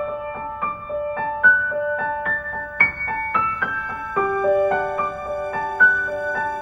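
Background music: a gentle piano melody of short, evenly paced notes.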